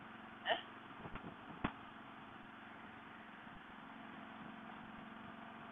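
Faint, steady hum of a motorcycle trike's engine and road noise, heavily damped as picked up by a rider's helmet headset microphone. A short rising chirp about half a second in and a sharp click about a second later.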